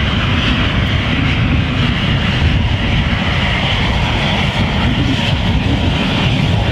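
A regional jet's rear-mounted turbofan engines running steadily, a loud jet hiss over a low rumble, as the airliner rolls along the runway.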